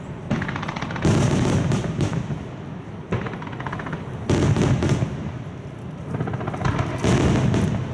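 Aerial fireworks shells bursting one after another, heard from about 500 m away: a run of deep booms that roll and fade, with crackling between them.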